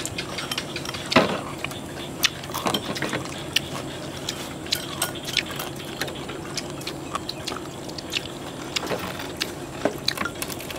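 Chopsticks clicking and tapping against porcelain rice bowls and plates during a meal: irregular light clinks, several a second, the loudest about a second in.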